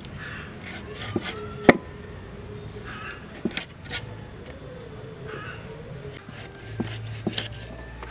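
Raw chicken being cut on a boti, an upright fixed blade on a wooden base: a few sharp cracks and clicks as pieces are pressed and pulled through the blade, the loudest about one and a half seconds in.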